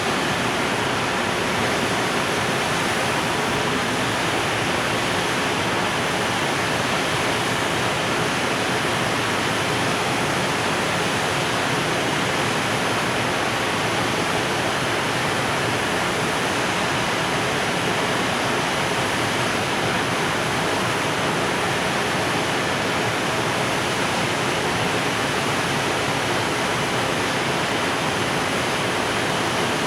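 Steady, even rushing noise of a long container freight train rolling past at a constant speed after departing.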